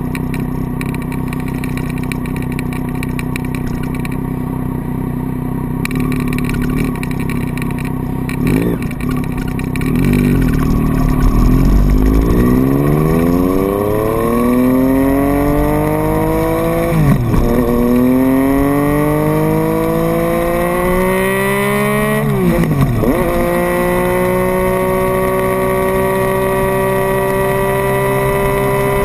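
Triumph Street Triple's three-cylinder engine idling, then pulling away and accelerating. The pitch climbs in each gear, with two upshifts, and settles into a steady cruise for the last few seconds.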